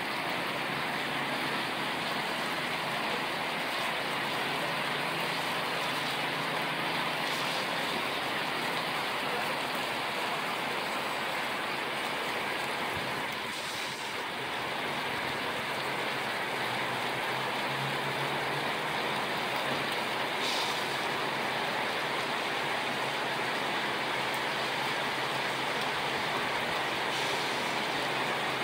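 Heavy rain falling steadily: an even, unbroken hiss of downpour.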